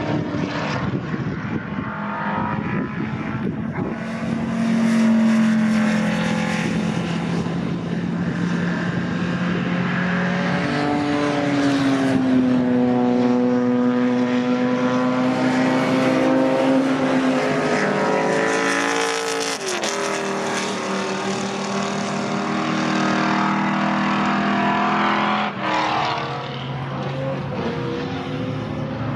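Historic GT and touring race cars driving past at speed one after another, several engine notes overlapping, rising and falling in pitch as each car comes and goes.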